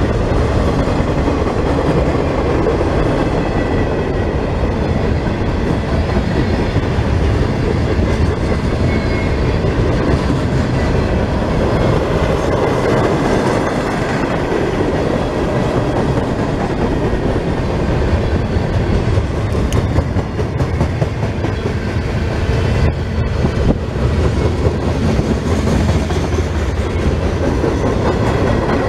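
Autorack freight cars rolling past close by: a steady, loud rumble and clatter of steel wheels on the rails, with a few sharper clicks about two-thirds of the way through.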